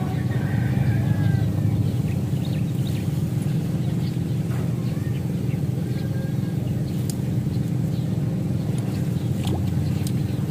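A steady low motor hum, even in level throughout, with a few faint chirps above it.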